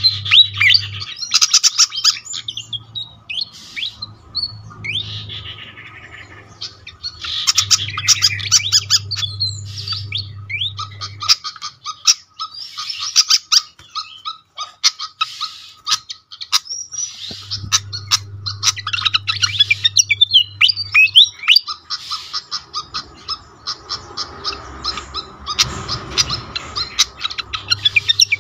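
Malaysian pied fantail singing: phrases of rapid, sharp, squeaky chirps and short rising whistles lasting a few seconds each, with brief pauses between them. A low hum comes and goes underneath.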